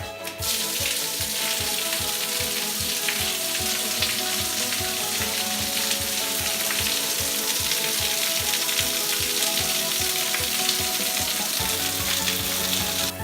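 Shower head running, water spraying down into a box in a steady hiss that starts about half a second in and stops suddenly near the end. Background music with a steady beat plays underneath.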